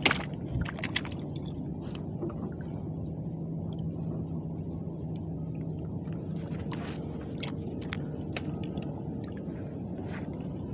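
Water lapping and gurgling against the hull of a small fishing boat, with a low steady hum that fades about six seconds in and scattered light clicks and knocks.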